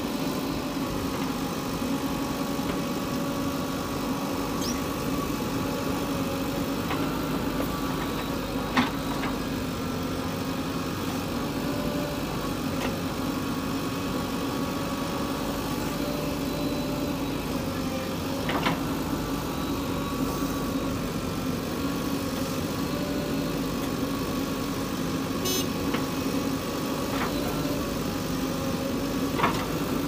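JCB 3DX backhoe loader's diesel engine running at a steady pitch while the backhoe digs and loads soil, with a few sharp knocks about ten seconds apart.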